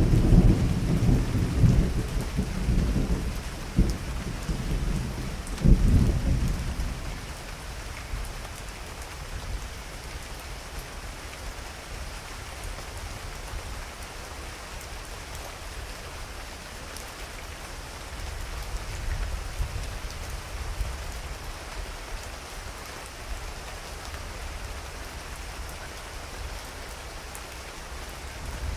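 Thunderstorm: a thunder rumble rolls at the start with a sharper clap about six seconds in, then dies away, leaving steady heavy rain falling.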